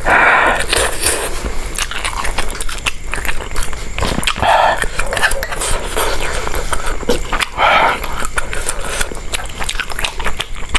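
A person eating river lobster and spicy noodles close to the microphone: chewing and crunching, with many short wet clicks and cracks. Three louder brief sounds come near the start, about four and a half seconds in, and near eight seconds.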